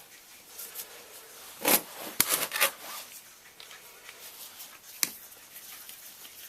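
Hand tools and small metal parts being handled on a workbench: a quick cluster of clicks and scrapes about two seconds in, then one sharp click about five seconds in.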